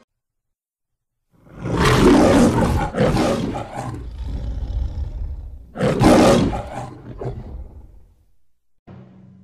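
The MGM logo's lion roaring twice: a long roar starting about a second and a half in, then a second, shorter roar a few seconds later.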